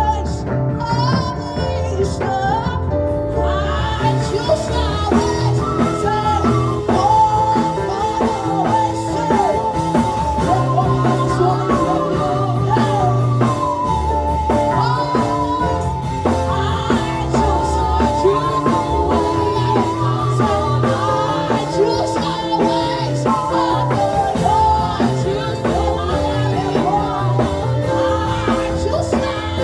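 Worship song: a sung melody over a band with bass and drums keeping a steady beat.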